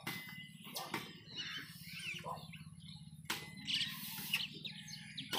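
Birds chirping, over a low steady hum, with a couple of sharp knocks about one second and three seconds in.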